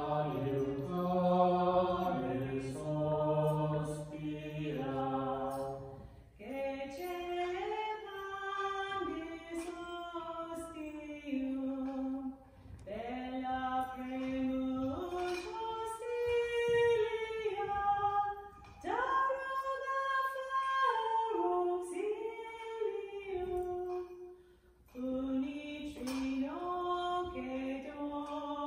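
Unaccompanied hymn singing for exposition of the Blessed Sacrament: a lower voice for the first six seconds, then a woman's voice carrying the melody in long held phrases, with a short breath between each phrase about every six seconds.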